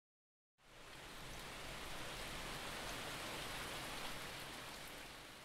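Rain pitter-pattering on the roof of a narrowboat, a steady patter that fades in about half a second in and eases off toward the end.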